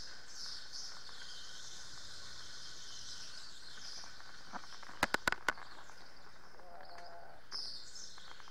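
Electric go-kart running with a steady high motor whine, its tyres squealing in short chirps on the polished indoor track surface through the corners. About five seconds in there is a quick run of sharp knocks.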